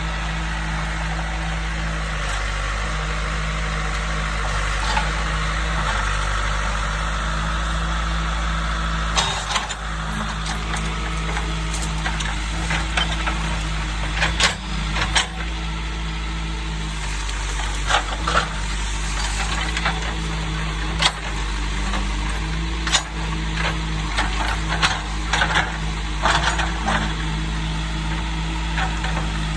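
John Deere 310 backhoe's diesel engine running steadily under load while it clears brush. From about nine seconds in, repeated sharp cracks and snaps of trees and branches breaking stand out over the engine.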